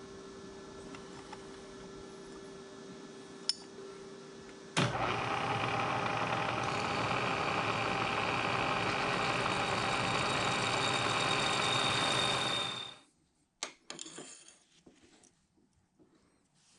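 Milling machine spindle running with a steady hum, then about five seconds in a twist drill bites into a steel flat-bar strap and cuts loudly for about eight seconds before stopping abruptly. A few light knocks near the end.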